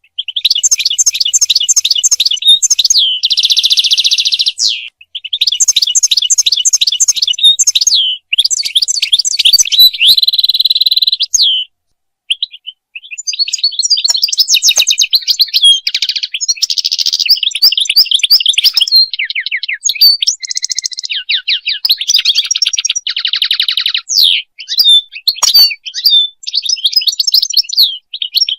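European goldfinch singing: long runs of quick, liquid twittering notes broken by buzzy trills. There is a brief pause about twelve seconds in.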